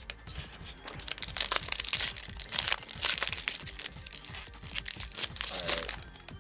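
Foil booster pack wrapper crinkling and tearing open in the hands, in irregular rustling bursts.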